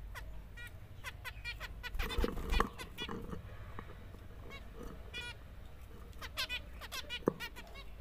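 Zebra finches calling: many short, nasal beeping calls in quick clusters. A brief louder scuffling noise comes about two seconds in.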